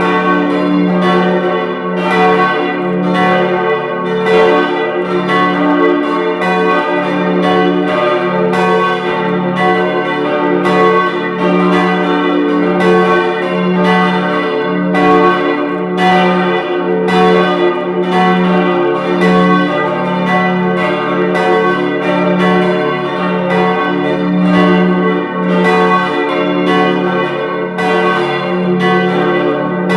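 Full peal of four swinging church bells tuned d', f-sharp', a' and b', their strokes overlapping continuously over a sustained ringing hum.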